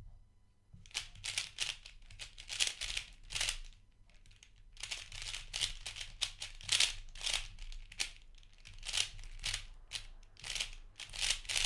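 Gans III 3x3 speedcube, unlubricated, turned rapidly during a solve: quick runs of plastic clacking and rattling that start about a second in, with short pauses between runs.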